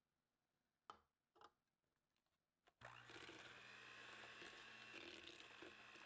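Electric hand mixer starting up about three seconds in and running steadily with a high whine, beating egg into creamed butter and brown sugar. Two short clicks come about a second in, before it starts.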